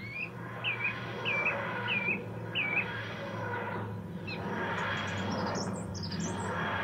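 Songbirds calling: one bird repeats a short hooked chirp five times, about every 0.6 seconds. Higher twittering comes in near the end over a soft rushing noise.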